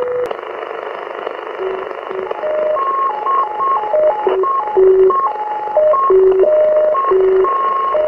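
EI1CAH 8-metre propagation beacon received on a web SDR in USB over Sporadic-E. A steady carrier tone stops a moment in, then the beacon's digital sequence follows as short tones hopping among four pitches, over steady band hiss.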